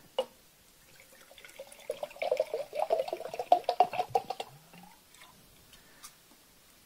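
Water pouring from a metal water bottle into a glass jar, splashing and gurgling for about three seconds as the jar fills about halfway. Near the end come a few faint knocks.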